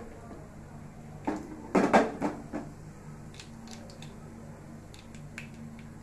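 Mustard and cumin seeds spluttering in hot coconut oil in a steel pan, heard as scattered sharp pops and clicks. A quick run of louder clatters comes from about one to two and a half seconds in.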